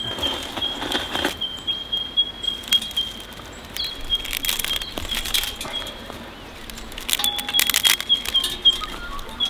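Dry twigs and ash rustling and scraping in a portable steel fire pit as they are handled, in three short bouts. A thin, high pulsing trill carries on steadily behind.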